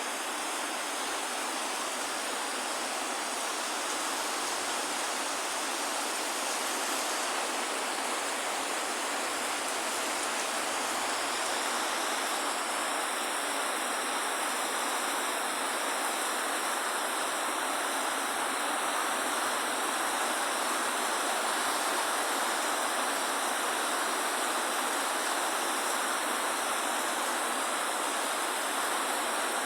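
Heavy rain falling, a steady dense hiss with no breaks.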